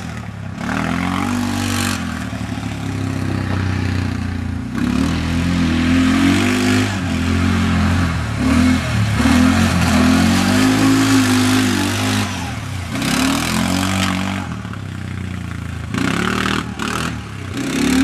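Quad (ATV) engine revving up and down over and over as the throttle is worked, its pitch rising and falling, easing off briefly a couple of times.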